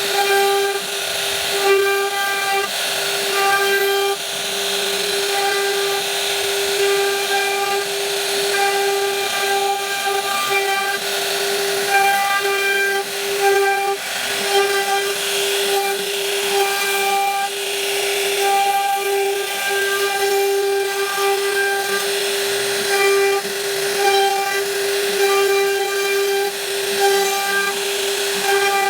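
Power tool spindle, likely a CNC router cutting wood, running with a steady high hum and a hissing cutting noise; the hum's overtones come and go as the cut changes.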